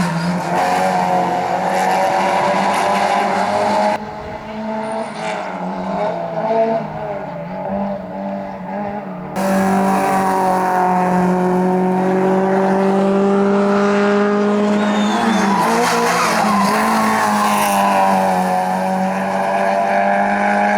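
Racing car engines held at high revs on a hillclimb course, the pitch drifting slowly up and down. The sound drops abruptly to a quieter, duller stretch about four seconds in and returns as loud about five seconds later.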